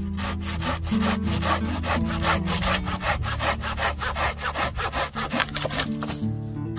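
Corona folding pruning saw cutting through a branch by hand: quick, even rasping strokes, about four to five a second, stopping near the end.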